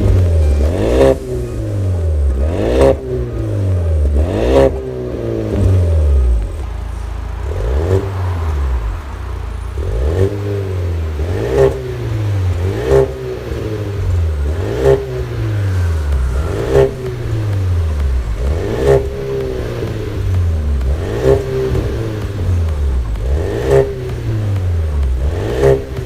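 Ford Kuga Mk3 ST-Line engine through an RD aftermarket cat-back exhaust with an electronic valve, revved in a long series of short throttle blips, roughly one every two seconds, each rising quickly and falling back.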